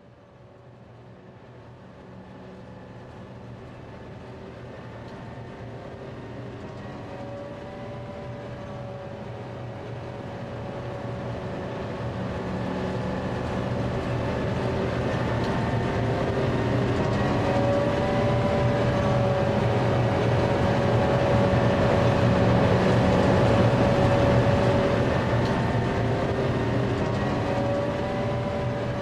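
HO scale model freight train, led by Santa Fe diesel units, running along the track with a steady hum and rolling noise that grows louder as it approaches, is loudest about three-quarters of the way through, then eases off slightly.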